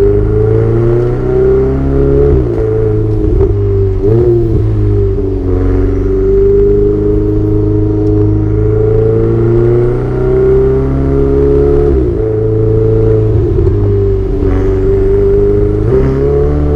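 Ferrari 488 Spider's twin-turbocharged V8 running under load with its exhaust loud. The engine note rises and falls as the car drives, and the pitch breaks and steps abruptly several times at gear changes.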